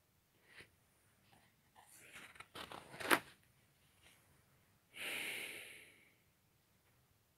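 Paper pages of a spiral-bound sketchbook being handled and turned: scattered rustling with a sharp snap about three seconds in, then a single brief swish about a second long near the end.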